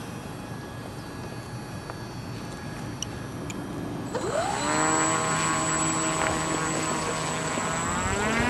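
Electric brushless motor and propeller of an E-Flite Apprentice S 15E RC plane spooling up: a whine rises sharply about four seconds in, holds steady, then climbs again near the end as the throttle is opened further.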